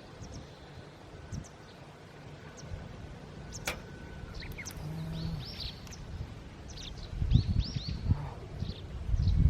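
Small wild birds chirping in short, scattered calls, with a single sharp click about a third of the way in. Low rumbling gusts, like wind on the microphone, build up over the last couple of seconds.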